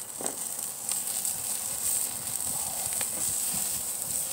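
Chunks of pork shoulder sizzling over hot charcoal on a kettle grill as fat drips and flares, a steady hiss broken by a few sharp crackles.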